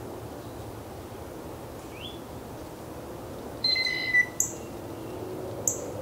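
Male northern cardinal calling: two sharp, high chip notes in the second half, about a second apart, with a short rising whistle about two seconds in and a held whistled note just before the first chip.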